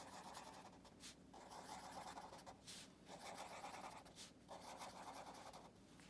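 Felt-tip marker scribbling on paper, colouring in small circles. It comes in four faint spells of about a second each, with short pauses between them.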